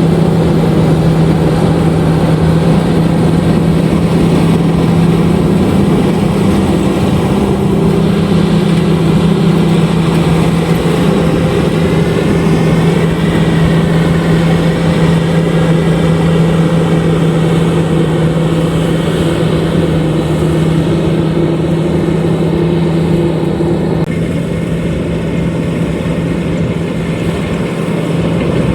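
LOVOL RG130EVO rice combine harvester running steadily: a loud, constant machine drone with a strong low hum. It turns slightly quieter a few seconds before the end.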